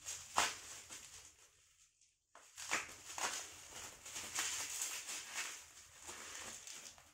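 Plastic packaging rustling and crinkling as items are handled, with a few sharp clicks and a short pause about two seconds in.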